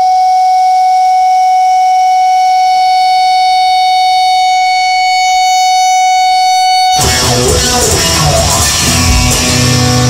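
Rock music: an electric guitar holds one long sustained note for about seven seconds, then the rest of the track comes in suddenly with a dense, full sound.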